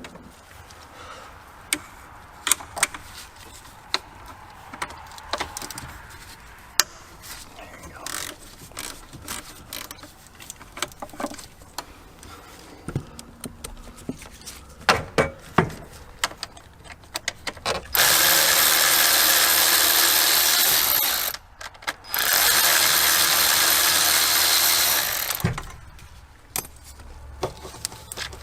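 Clicks and ratcheting of a 7mm socket on the ignition coil bolts of a Ford 5.4L engine, then two loud, steady rushing bursts of about three seconds each, a little over halfway in.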